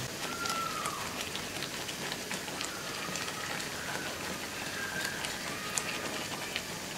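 Semolina and milk simmering in a frying pan while being stirred with a spatula, thickening as it cooks: a steady crackling hiss with many small bubbling pops, and a few short faint squeaks.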